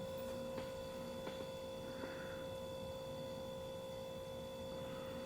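A few faint clicks of small metal trigger parts being handled as the over-travel spring is worked onto its pin, over a steady electrical hum.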